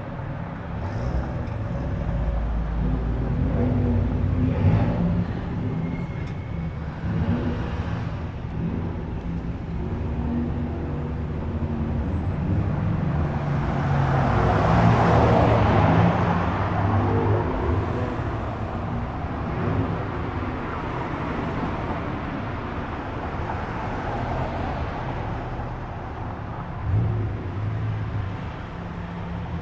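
Car engines and exhausts running as cars roll slowly past, with one car passing close and loudest about halfway through.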